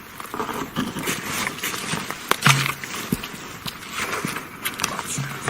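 Footsteps of people walking quickly outdoors, an uneven run of short crunches and knocks underfoot.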